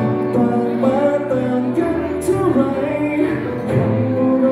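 A man singing into a microphone over amplified backing music.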